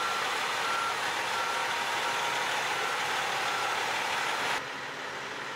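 Backup alarm on a heavy-haul truck beeping steadily, about three beeps every two seconds, over engine and road noise as the blade trailer is reversed. After about four and a half seconds it cuts to a quieter, steady truck engine idle.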